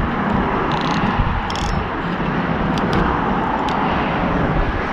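Steady traffic noise from the highway bridge alongside, with an uneven low rumble of wind on the microphone and a few light clicks about one and one and a half seconds in.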